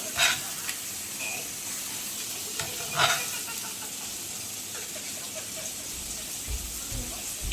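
Sausages sizzling in a frying pan, a steady hiss, with two sharp knocks, just after the start and about three seconds in, and a few fainter ones.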